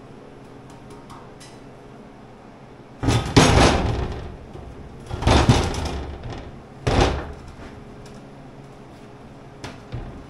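Heavy fabricated steel leg clanking and scraping against a steel workbench as it is lifted off: three loud metal clanks, the first about three seconds in and ringing on for a second or so, the others about two seconds apart, then a faint knock near the end.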